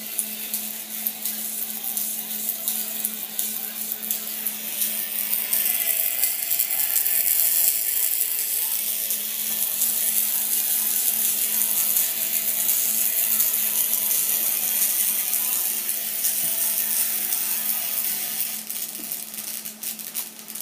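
A flyback-transformer plasma speaker's electric arc running as a continuous crackling buzz with a steady low hum underneath. Faint music from the connected player comes through the arc.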